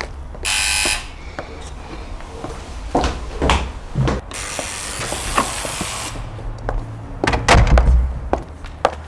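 An electric buzzer sounds twice, a short buzz and then a longer one of about two seconds, among scattered clicks and knocks of a door being handled.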